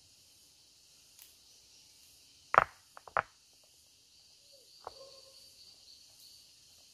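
Rocks clacking together as they are set in place to build a stone hearth: one sharp knock about two and a half seconds in, then two lighter knocks just after. A faint steady high hiss runs underneath.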